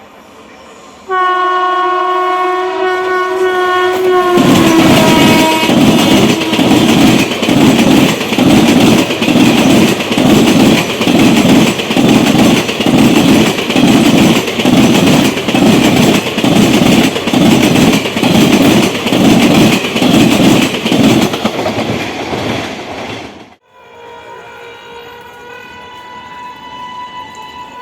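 Indian Railways train horn sounding for about three seconds, its pitch dropping slightly as it ends. Then a passing train's wheels clatter over the rail joints in a steady rhythm about once a second. This cuts off suddenly, and a fainter steady horn-like tone follows near the end.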